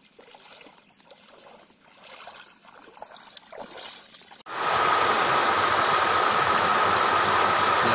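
Faint sloshing of water as a person wades through shallow floodwater with a bicycle. About halfway through, the sound jumps to a loud, steady rush of floodwater pouring over a submerged causeway, with a thin, steady high tone running through it.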